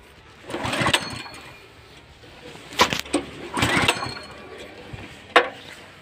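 Small petrol engine on a power weeder being pull-started: several short rope pulls that turn it over without it catching, and a sharp knock near the end.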